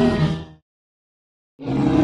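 Torosaurus sound effect: a low, pitched creature call dies away about half a second in. After a second of dead silence, the next call starts near the end.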